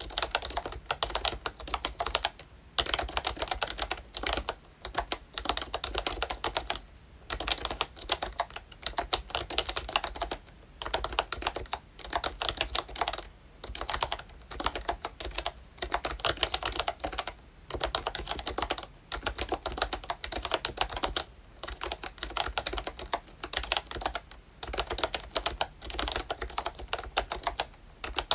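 Typing on a ROYCHE Disney Mickey Mouse retro membrane keyboard with round, typewriter-style keycaps: quick runs of key clacks broken by short pauses every second or two.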